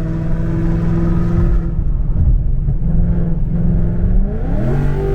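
Ford Mustang GT's 5.0 Coyote V8 exhaust, fitted with long-tube headers and an X-pipe, holding a steady drone while driving, then revving up in a quick rise in pitch near the end as the car accelerates.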